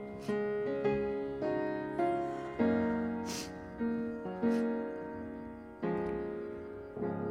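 Piano played slowly and softly: single chords struck about every half second, each left to ring and fade before the next.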